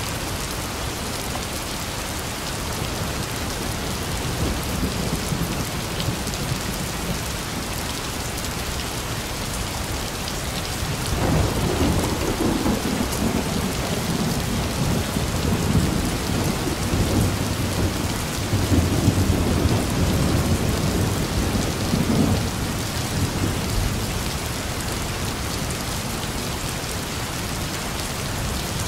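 Heavy rain falling steadily, with a long roll of thunder rumbling in about eleven seconds in and dying away some twelve seconds later.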